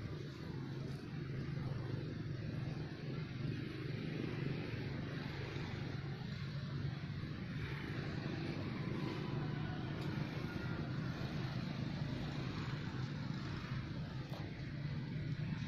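A motor engine running steadily: a low, even hum with a rushing hiss above it.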